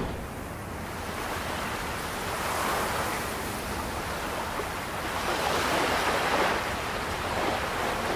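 Ocean surf washing on a beach, a steady rush that swells twice as waves come in.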